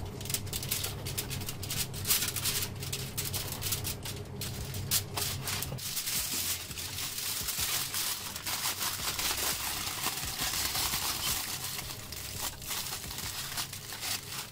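Aluminium foil crinkling and crumpling under the hands as it is folded and scrunched tightly around whole aubergines: a dense run of crackles.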